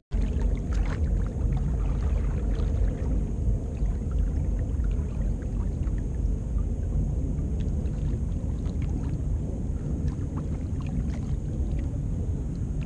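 Sea kayak paddled through choppy water: water slapping and sloshing against the hull and paddle, with many small splashes and drips over a steady low rumble.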